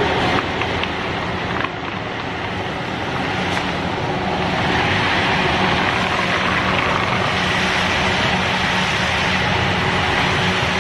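Popcorn caramelizer machinery running: a steady mechanical noise with a low hum, and a few light clicks in the first two seconds.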